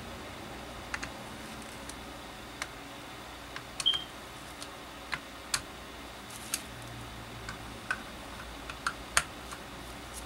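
Irregular light clicks and taps of hands handling the plastic housing of a Milwaukee M12 cordless drill while reassembling it, with one brief high squeak about four seconds in.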